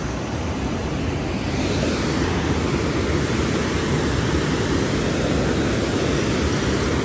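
Steady rushing noise of river water flowing over a shallow, rocky bed, mixed with wind buffeting the microphone. It grows a little louder about a second and a half in.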